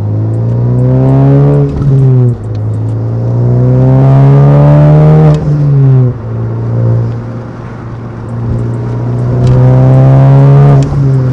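Honda Civic Type R's turbocharged 2.0-litre four-cylinder accelerating through the gears. The engine note rises steadily and drops sharply at each upshift, about three times, with a steadier stretch in the middle.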